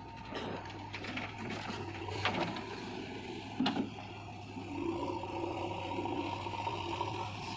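Steady low engine hum with scraping and clattering over it, and two sharp knocks a little over a second apart near the middle, typical of earth-moving machinery working in mud.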